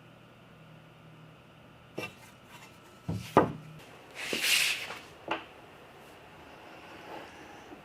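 Hands working with wooden pieces at the bench: a couple of clicks, a sharp knock about three and a half seconds in, and a short rubbing scrape of wood on wood.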